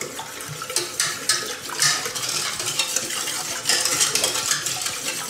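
Wire whisk beating a cold milk, cornstarch, sugar and egg pudding mixture smooth in a stainless steel pot, its wires scraping and clicking rapidly against the metal.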